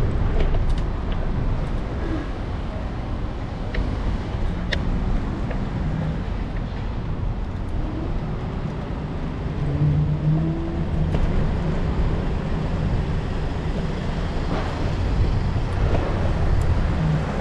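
City street traffic with a steady low rumble of wind and road noise on the microphone while riding an electric scooter along the road. A vehicle's engine hums briefly about ten seconds in.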